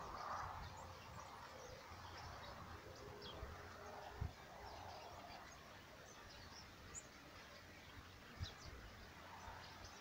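Faint birdsong: several birds giving short, high chirps scattered throughout, over a low steady rumble, with two soft thumps about four and eight seconds in.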